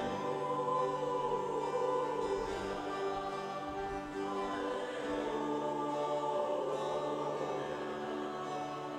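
Soft background music of slow, sustained chords with choir-like voices, in the style of a gospel hymn.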